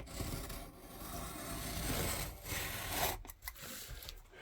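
Sharp utility knife blade drawn along a straight edge, slicing through a laminated paper sheet: a steady scraping cut lasting about three seconds, then a fainter, shorter scrape near the end.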